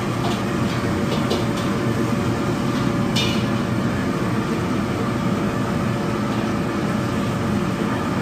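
Steady mechanical rushing noise of a restaurant kitchen, with a faint steady hum and a few light clicks in the first three seconds.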